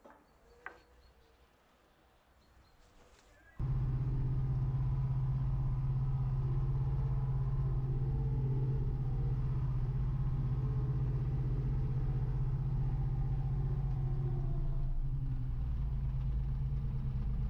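A few quiet seconds, then a wheel loader's engine running steadily, heard from inside the cab; it starts suddenly about three and a half seconds in.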